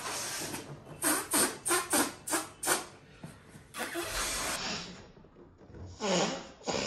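A person blowing hard in a quick run of short, breathy puffs, then one longer blow, with a couple more puffs near the end.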